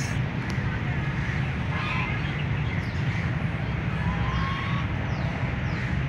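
Outdoor park ambience: a steady low rumble under a few scattered bird calls, including a call about two seconds in, a short whistle about four seconds in, and quick high chirps after it.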